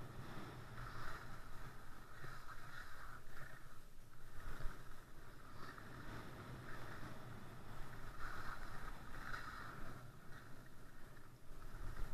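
Skis sliding and scraping over packed snow during a downhill run, with wind rushing over the microphone. The sound swells and eases in uneven surges.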